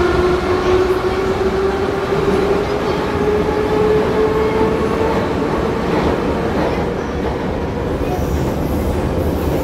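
Moscow metro train heard from inside the car as it accelerates out of a station: the traction motors' whine climbs steadily in pitch over the rumble of wheels on track, then drops away near the end.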